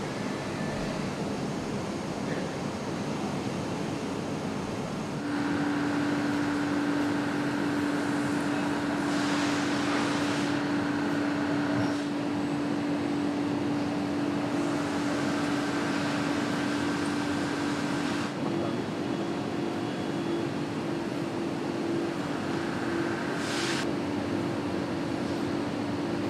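Steady factory machinery noise from an engine production line, with a constant hum that comes in about five seconds in. Brief hisses sound near the middle and again near the end.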